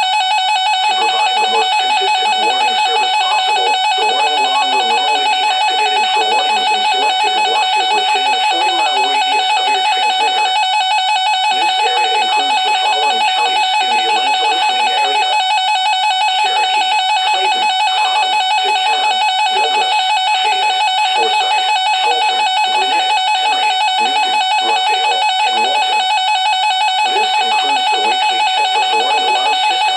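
Music with short plucked-sounding notes, over a steady high tone held unbroken throughout.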